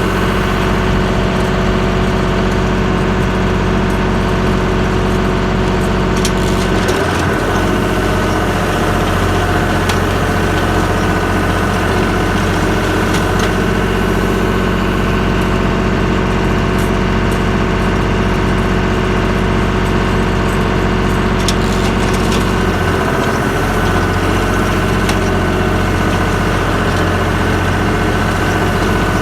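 Tractor engine running steadily while it drives an Allis-Chalmers Roto-Baler. The engine note dips and shifts briefly about seven seconds in and again around twenty-three seconds, as the load on the baler changes.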